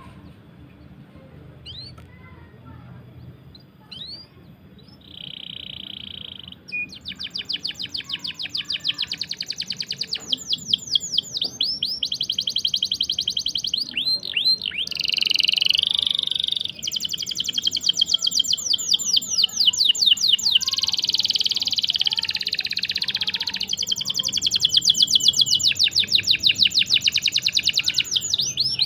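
Canary song: a few single chirps and a short held note, then long rolling trills of rapid repeated high notes, running on with only brief breaks.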